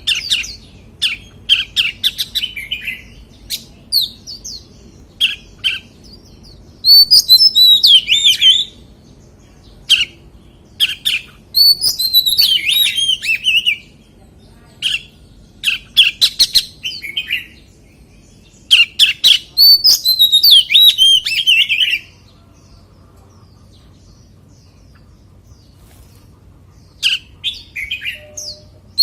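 Oriental magpie-robin singing: phrases of sharp clicking notes and rich, high warbling that rise and fall, separated by short pauses, with a longer pause of several seconds about two-thirds of the way through.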